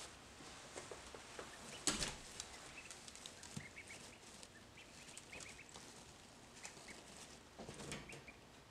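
Ducklings peeping softly in short, scattered chirps while shuffling about on wood shavings, with a sharp rustle of shavings about two seconds in and another near the end.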